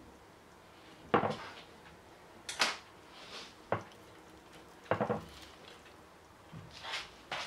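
Hands putting together a köfte sandwich on a serving plate: about half a dozen short, irregular knocks and rustles as grilled tomato slices go on and the toasted bread is closed and pressed down against the plate.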